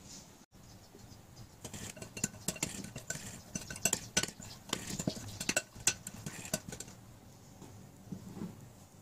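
Metal spoon stirring tomato sauce in a ceramic bowl, clinking and scraping against the bowl in quick, irregular taps that thin out about seven seconds in.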